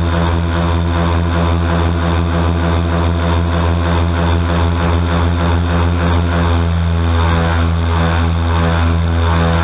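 Airboat engine and large air propeller running loud and steady at speed, with a slight change in engine note about two-thirds of the way through.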